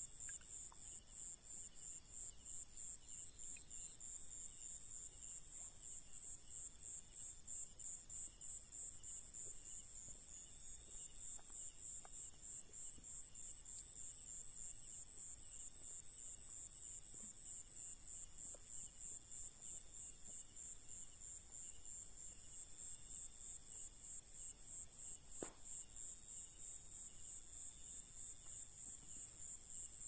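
Chorus of night insects: a steady, high-pitched, rapidly pulsing trill that runs on without a break, with one faint tap near the end.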